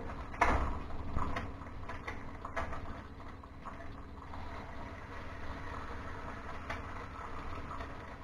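Eggs sizzling steadily in hot bacon grease in a carbon steel wok, with a knock about half a second in and a few softer clicks after.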